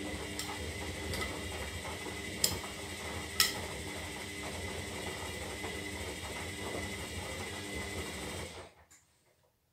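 Zanussi Lindo 300 washing machine's motor turning the drum in a wash tumble: a steady motor hum with a whine, two sharp knocks about two and a half and three and a half seconds in, then the motor stops suddenly near the end.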